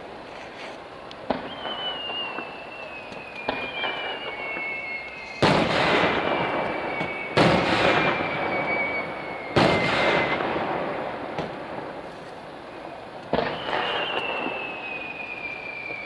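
Aerial fireworks display: sudden bangs of bursting shells every two seconds or so, the loudest about five and a half, seven and a half and nine and a half seconds in. Long high whistles slide slowly down in pitch between the bangs.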